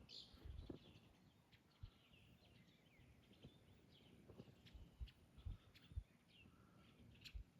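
Faint outdoor evening ambience: several birds giving short chirps and calls, with a few brief low thumps.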